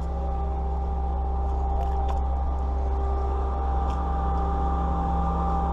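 A steady engine hum, low and unchanging, with a constant whine above it. A couple of faint clicks come about two seconds in.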